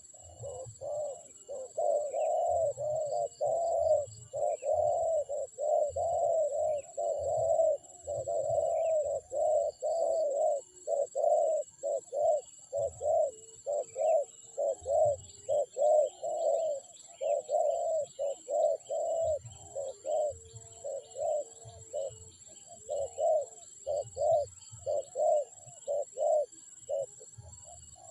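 Spotted doves (terkukur) cooing over and over, a couple of short coos a second with brief pauses, as used for lure recordings.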